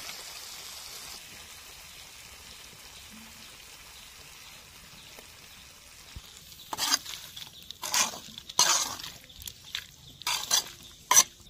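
Snail curry sizzling in a metal wok. In the second half a metal ladle stirs it in several loud scraping strokes against the pan.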